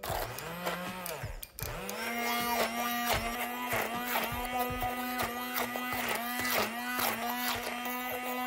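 Immersion blender switched on, cutting out briefly about a second and a half in, then running steadily as its blade purées roasted cherry tomatoes and garlic in a steel bowl. The motor hum is broken by uneven chopping and spattering as chunks hit the blade.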